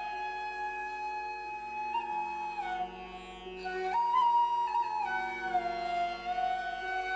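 Slow instrumental background music: a flute-like melody of long held notes stepping up and down over sustained lower accompanying notes.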